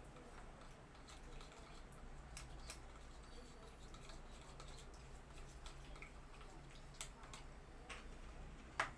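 Faint spoon stirring white glue and water in a container: scattered small clicks and scrapes, with a sharper click near the end.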